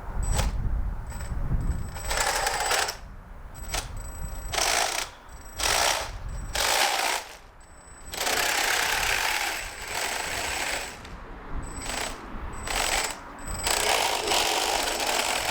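Small 3D-printed RC tank driving in stop-start bursts: its brushless motors whine and the plastic track links clatter, each run lasting a second or two.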